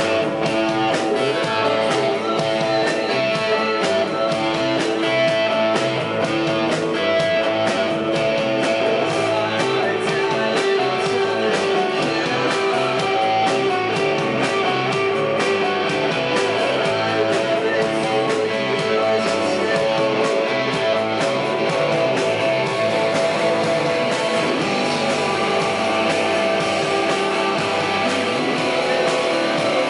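Live rock band playing loudly and steadily: a semi-hollow electric guitar over a steady drum beat.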